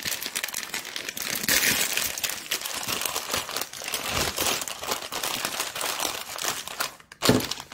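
Plastic instant-ramen packet crinkling continuously as it is handled, with a single knock about seven seconds in.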